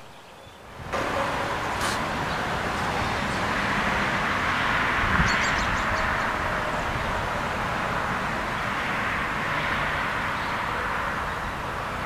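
Distant road traffic: a steady rushing of tyre noise that comes up about a second in, swells to its peak around the middle and slowly eases. Around the middle a bird gives a quick run of high chirps.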